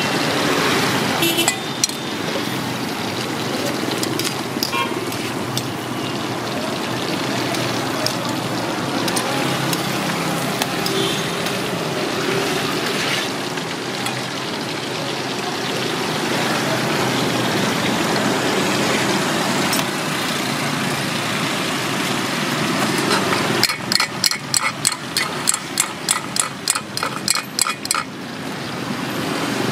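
Quail sizzling as they deep-fry in butter and oil in an aluminium wok, over a steady hiss of street traffic. Near the end, a quick run of metallic taps, about four a second, as a mesh strainer of fried quail is shaken and knocked against a pot to drain the oil.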